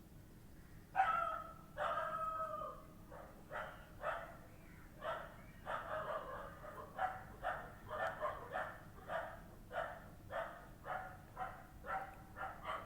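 A dog barking over and over, starting about a second in and keeping up about two short barks a second.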